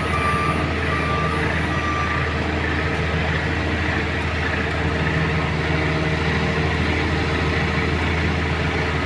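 Heavy diesel engine of construction machinery running steadily with a constant low hum. A few short high beeps come in the first two seconds.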